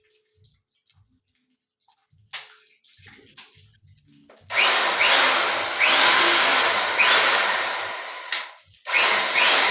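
A 1500 W electric rotary hammer is switched on about four and a half seconds in and runs loudly, its pitch rising again and again about once a second. It stops briefly near the end and starts again. Before it starts there are only a few light clicks.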